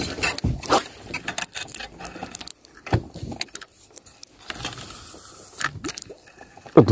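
Handling noise of fishing gear: scattered sharp clicks and light rattles as a fishing rod and spinning reel are handled in a metal jon boat.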